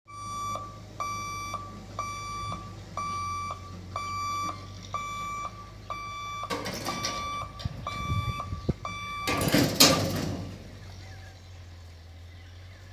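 Level-crossing warning buzzer beeping about twice a second while the boom barriers come down, stopping about nine seconds in. Two bursts of rushing, rattling noise come about six and a half and nine and a half seconds in; the second is the loudest sound.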